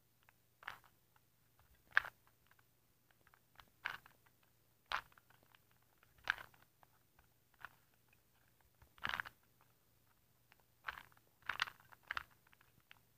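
Plastic 2x2x2 Rubik's cube being turned by hand, its layers clicking and clacking in short bursts every second or two.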